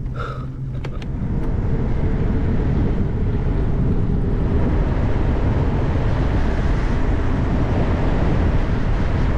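Wind rushing over an action camera's microphone while riding a bicycle. The noise builds up over the first couple of seconds, then holds steady and loud.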